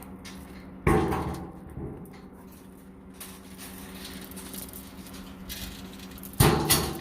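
Two loud bangs, one about a second in and one near the end, each dying away over about half a second, over a steady low hum.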